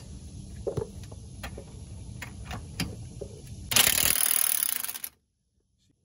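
Light metal clicks of a wrench being set on a nut, then a cordless impact wrench hammering on a long bolt for about a second and a half. It is driving the stacked nuts against the hub to press the worn front wheel hub out of its knuckle. The hammering cuts off suddenly.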